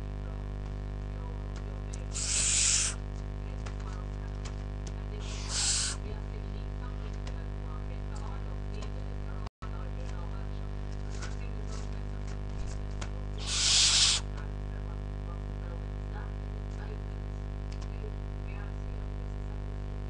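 Four-week-old barn owl chick giving three harsh, hissing screeches, each under a second: about two seconds in, near six seconds, and about fourteen seconds in. These are its begging calls for food. A steady low hum runs underneath.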